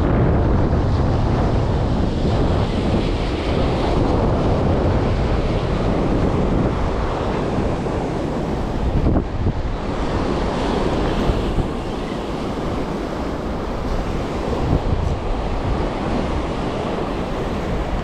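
Ocean surf breaking and washing over shoreline rocks, a continuous rushing roar, with wind buffeting the microphone.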